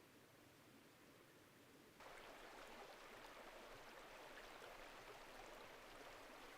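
Faint, steady rushing noise with no clear pitch, stepping up abruptly in level about two seconds in, with light ticks scattered through it.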